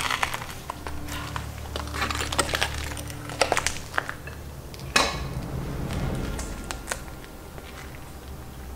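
Footsteps crunching over a gritty, rubble-strewn floor, with scattered clicks and scrapes and one sharp knock about five seconds in.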